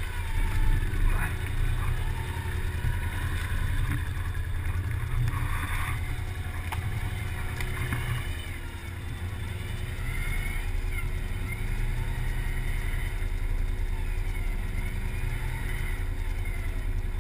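Can-Am Outlander 1000 ATV engines running in deep mud: a steady low drone at low revs, with some rising and falling revs as a quad works through the muck.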